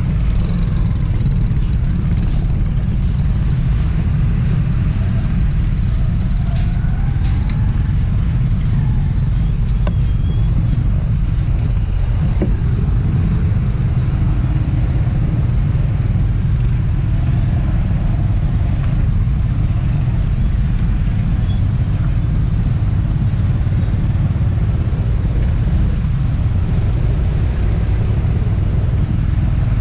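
Road ride on a motorbike in heavy motorbike and car traffic, heard from a camera mounted on the bike: a loud, steady low rumble of engines and wind on the microphone.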